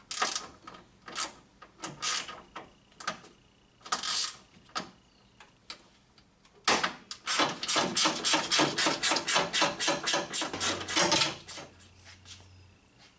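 Hand ratchet clicking as a bolt is loosened on the car's radiator support: a few separate clicks at first, then a fast run of ratchet clicks for about four seconds from a little past halfway.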